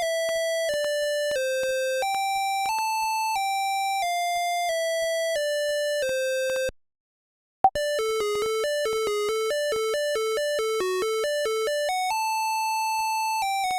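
Monophonic phone ringtone melodies from a Zetafone LT-600: one melody of evenly held electronic beep notes stops about halfway. After a second's silence and a click, a quicker ringtone of about four notes a second starts, ending on a long held note.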